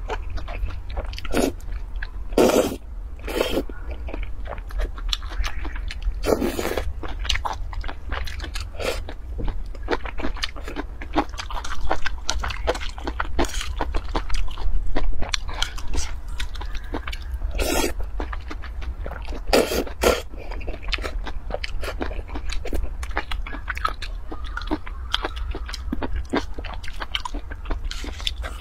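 A person eating noodles with chopsticks: wet mouth sounds of chewing and smacking, with several louder slurps of noodle strands scattered through, over a steady low hum.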